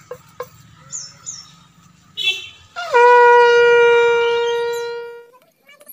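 Conch shell (shankha) blown for a puja: a short blast, then one long steady note of about two and a half seconds that dips in pitch as it starts and fades toward the end.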